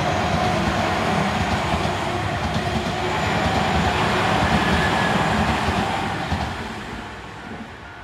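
Tobu Tojo Line electric commuter train passing over a level crossing, a loud steady rumble of wheels on rail that fades from about six seconds in as the last car clears. Level-crossing bells ring under it and come through as the train noise dies away.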